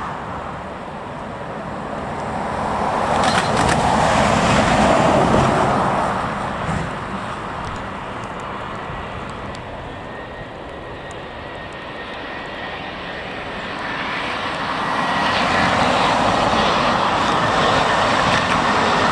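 Jet airliner engines running, a broad rumbling noise with a faint steady whine that swells about four seconds in, fades, and builds again near the end.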